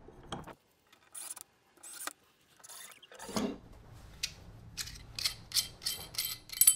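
Metal door lever handle hardware being handled and fitted together: a run of small sharp metallic clicks starting a few seconds in and coming faster toward the end, finishing with a louder click.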